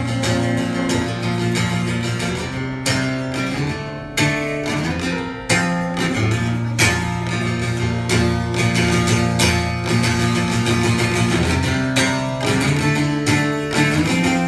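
Live music: a guitar strumming chords in a steady rhythm, with no singing.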